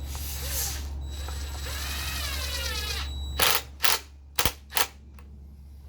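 A steady low hum that cuts off about three and a half seconds in, followed by four sharp clicks in quick succession, the loudest sounds here.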